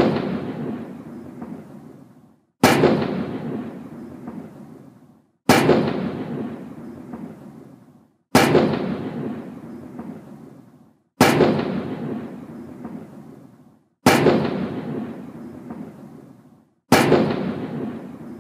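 21-gun salute: single booming gunshots fired evenly, about one every three seconds, six in all. Each shot rolls away in a long, low echo before the next.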